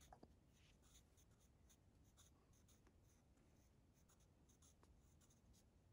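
Faint pencil scratching on paper: a quick, uneven run of short strokes as small zigzag spikes are drawn.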